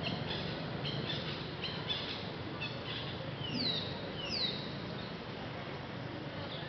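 High-pitched animal calls: a series of short chirps, then two falling squeals about a second apart, over a steady low hum.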